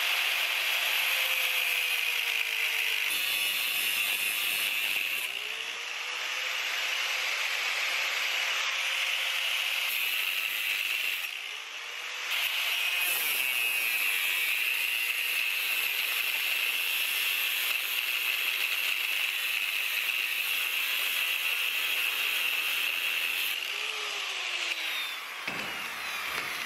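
Angle grinder cutting through the Picatinny rail top of a scope riser clamped in a vise: a steady, high grinding whine of disc on metal. It eases off twice briefly, the motor note dipping and picking up again, then winds down and stops near the end.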